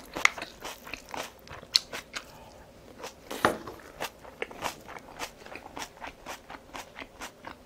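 Close-up chewing of kimchi: a steady run of irregular crunchy, wet mouth clicks and smacks, with a few louder crunches among them.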